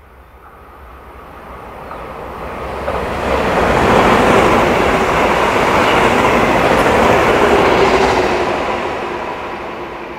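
TEMU2000 Puyuma tilting electric multiple unit running through at speed: a rushing train noise that builds as it approaches, is loudest for a few seconds in the middle as the cars pass close by, then fades as it moves away.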